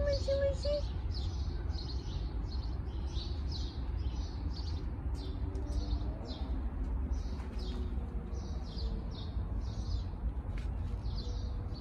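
Small birds chirping rapidly and continuously, about three or four high chirps a second, over a steady low rumble. A brief rising call sounds right at the start.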